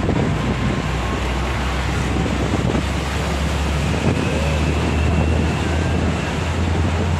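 Wind rushing over the microphone on the open top deck of a moving tour bus, over a steady low rumble of the bus and the bridge traffic.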